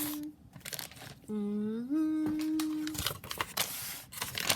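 A woman humming a short tune: a low note stepping up to a higher held note, heard as a phrase ending at the start and again about a second in. Near the end, packaging crinkles.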